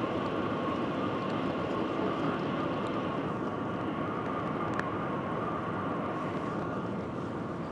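Steady rushing noise inside the cabin of the Shanghai Maglev train running near its top speed of about 430 km/h, with a faint steady whine and a single brief click about five seconds in.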